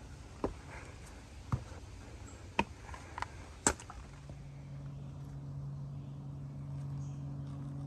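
Footsteps knocking and scuffing on a rocky trail, several sharp steps in the first half. About four seconds in, a steady low drone begins and holds, which the hiker takes for an airplane overhead.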